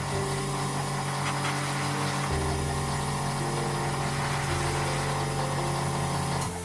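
Background music with slow sustained notes, over a steady hiss.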